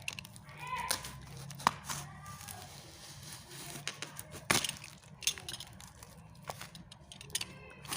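A parcel being cut open: a utility knife and scissors working through packing tape and wrapping, with tearing, crinkling and scraping and several sharp knocks and clicks.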